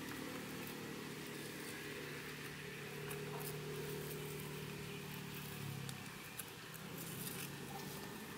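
A steady low motor hum in the background that drops and thins out about six seconds in, with faint light crackles as charred skin is picked off grilled fish.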